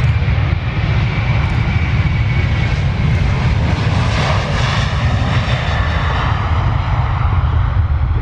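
Airbus A330's twin turbofan engines at takeoff power as the airliner accelerates down the runway past the listener: a loud, steady rumble with a high whine that drifts slightly down in pitch. It is brightest about halfway through, as the aircraft passes.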